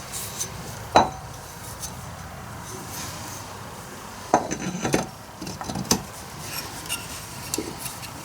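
Metal parts clicking and knocking together a handful of times, the sharpest about a second in and a cluster from about four to six seconds in: a chainsaw's magneto flywheel being worked onto its crankshaft.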